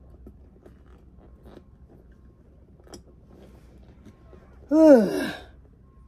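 Faint clicks and rustles of doll parts being handled, then about five seconds in a short, loud vocal outburst from a woman, its pitch rising then falling, over in under a second.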